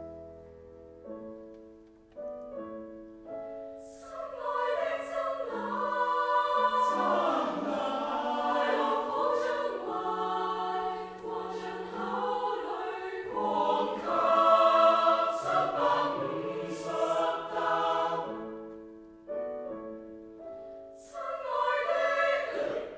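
Choir singing a Cantonese song in several parts. It opens on soft held notes, swells to full voice about four seconds in, dips briefly near the end, then comes back loud and cuts off sharply.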